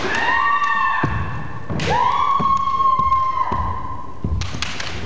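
Kendo kiai: two long, drawn-out shouts at a steady pitch, the first just after the start and the second about two seconds in. Sharp knocks and thuds from bamboo shinai and stamping feet on the wooden floor come about two seconds in and again near the end.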